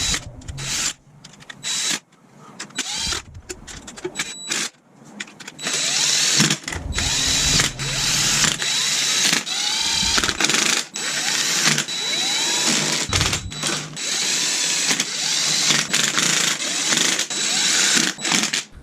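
Handheld power driver spinning in the clutch cover bolts, several short bursts at first, then near-continuous running with its whine rising in pitch each time it spins up.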